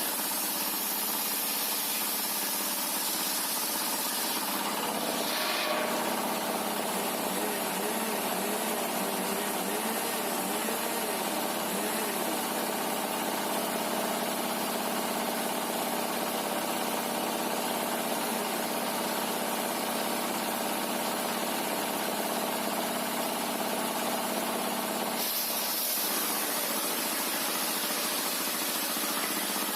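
Sawmill machinery running steadily, a motor-driven saw with a constant mechanical hum and hiss. The tone changes about five seconds in, wavers for several seconds, and changes back a few seconds before the end, as a saw's sound shifts when it enters and leaves a cut.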